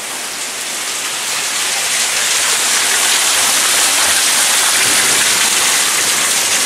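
Heavy thunderstorm rain pouring down: a loud, steady hiss of downpour that grows a little louder over the first couple of seconds.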